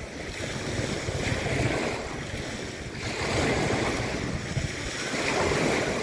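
Small wind-driven waves on a freshwater lake washing and breaking onto a rocky shore, swelling and falling every two to three seconds, with wind buffeting the microphone.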